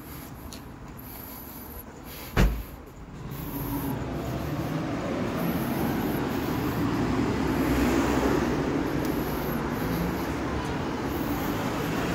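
Street traffic: a vehicle's noise swells from a few seconds in, loudest about two-thirds of the way through, then eases only a little. A single sharp thump comes just before the traffic noise rises.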